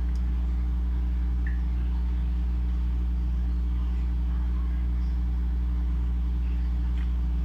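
A steady, unchanging low electrical hum with a buzz of overtones.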